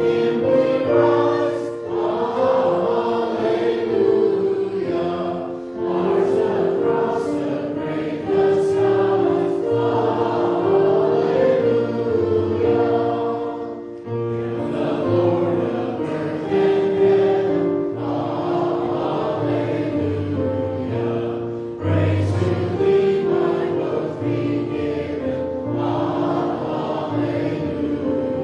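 Choir singing in phrases over steadily held accompanying notes during a church service.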